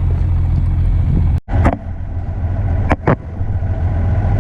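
Combine running with a steady low drone. The sound cuts out for an instant about a second and a half in, and a few sharp clicks follow.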